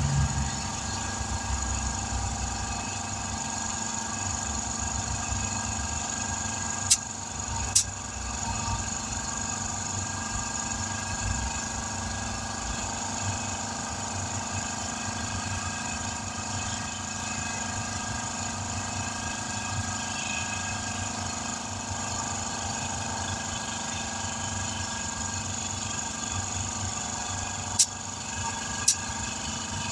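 A small engine running steadily at one speed, with a constant hiss over it. Two pairs of sharp clicks come about seven seconds in and again near the end.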